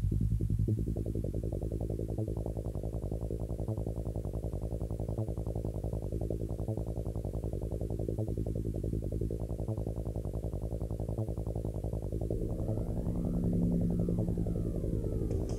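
Electronic music soundtrack: a fast, even pulsing beat over low sustained synth tones, with a brighter synth line coming in about three-quarters of the way through.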